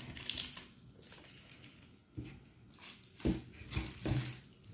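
Plastic straw wrappers crinkling, with a few sharp clicks and knocks as straws are unwrapped and pushed into cardboard juice boxes.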